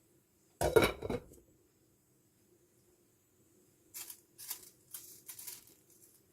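Kitchen handling sounds: a sharp clatter about half a second in, then four or five short scraping strokes near the end.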